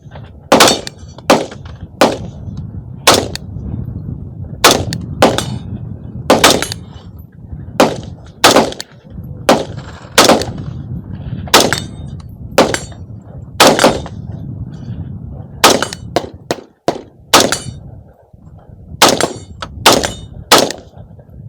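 AR-15 rifle fired semi-automatically, about two dozen shots at an uneven pace, some in quick pairs and some a second or more apart.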